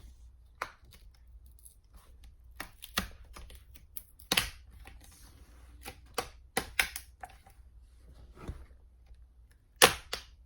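Plastic screen bezel of a Dell Inspiron 3180 laptop being pried off by hand: a run of irregular clicks and snaps as its clips let go, the loudest a second before the end.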